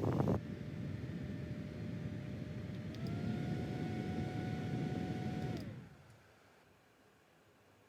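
BT21 x ROYCHE mini handheld fan running: a small motor's steady whir with rushing air that steps up to a higher speed about three seconds in. Near six seconds it is switched off and the whir falls away.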